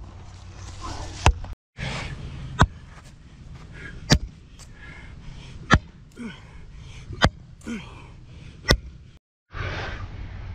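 A sledgehammer striking the top of a wooden stake: seven sharp wooden knocks, about one every one and a half seconds.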